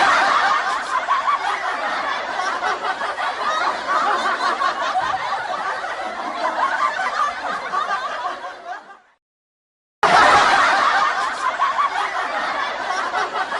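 Canned sitcom studio-audience laughter: a crowd laughing together, fading out about nine seconds in. After about a second of silence a second stretch of crowd laughter starts.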